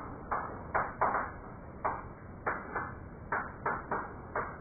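Chalk striking and scraping on a blackboard during writing: about ten short, sharp strokes at uneven intervals.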